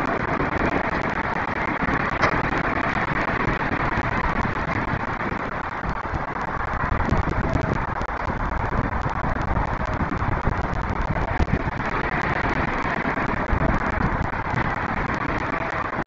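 Steady hum of distant city road traffic with scattered faint crackles.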